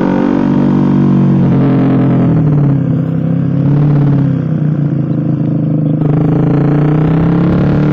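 Exhaust of a Suzuki GSX-R150's single-cylinder engine, fitted with an aftermarket SC Project-style pipe, heard while riding. The engine note falls and rises as the throttle changes.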